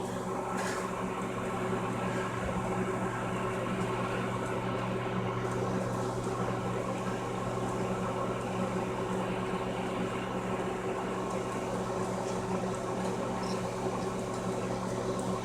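Microwave oven running with a steady, even hum while heating a whole egg in its shell.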